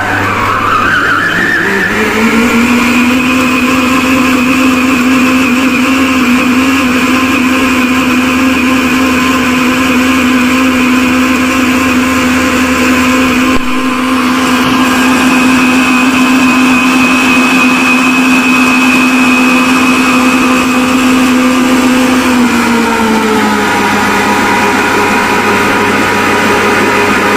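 Geepas electric stand mixer kneading atta dough in its steel bowl, its motor whining. It speeds up over the first two seconds as it is turned up to its top speed, 4, then runs steadily. Near the end it slows to a lower hum as the speed is turned back down.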